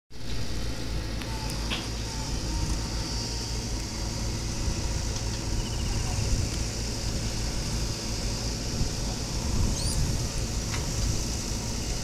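JCB backhoe loader's diesel engine running steadily as the backhoe digs. It is a low, even drone that never stops.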